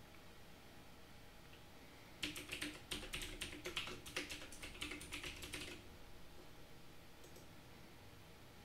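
Typing on a computer keyboard: a quick run of keystrokes starting about two seconds in and stopping about six seconds in, followed by a single faint click about seven seconds in.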